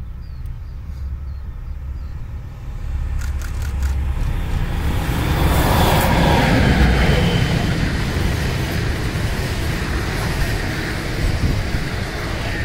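A diesel locomotive hauling a double-deck regional train approaches and passes at speed. The engine and wheel noise rises to a peak about six seconds in as the locomotive goes by, then the coaches run past with a steady rush of wheels on rail.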